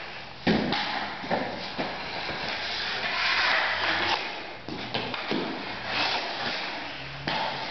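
Street-hockey sticks scraping along a concrete garage floor, with several sharp knocks of stick on ball or floor, the hardest about half a second in.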